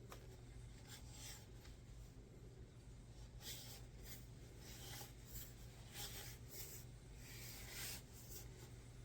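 Faint rubbing and scraping of hands handling a selfie stick and its phone holder, with a few brief brushing sounds about a third of the way in, two-thirds in and near the end.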